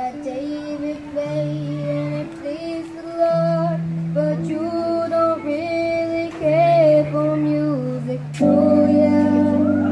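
A boy singing solo into a microphone through a PA, over an accompaniment of sustained chords and bass notes; the accompaniment swells to a fuller chord near the end.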